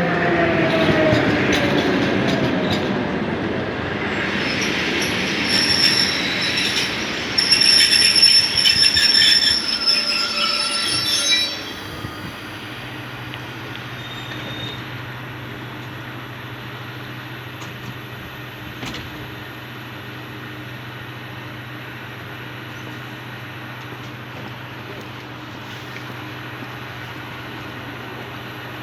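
An EP2D DC electric multiple unit braking to a stop: its motor and gear whine falls in pitch, and a high brake squeal joins about six seconds in and cuts off abruptly about eleven seconds in as the train halts. After that the standing train gives a steady low hum.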